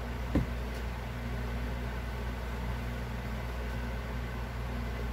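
Steady low mechanical hum of room background, with one brief louder blip about half a second in.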